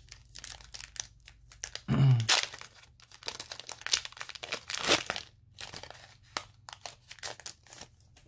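Foil Pokémon booster pack wrapper being torn open and crinkled by hand, a dense crackle with a louder rip about two seconds in and another near five seconds.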